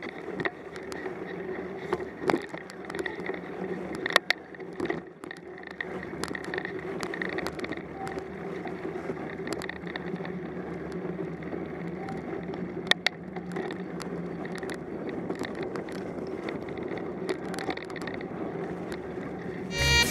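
Mountain bike rolling along a snowy, leaf-strewn dirt trail: steady tyre and drivetrain noise with a few sharp knocks and rattles over bumps.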